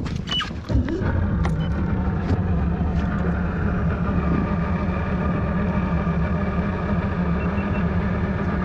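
Boat's outboard motor running steadily at low speed, coming in about a second in.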